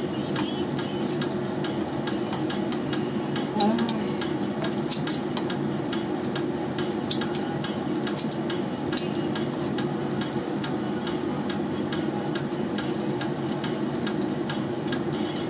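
Turon (sticky-rice spring rolls) frying in hot oil in a wok, a steady sizzle full of small crackling pops, while metal tongs turn the rolls with occasional light clicks against the pan.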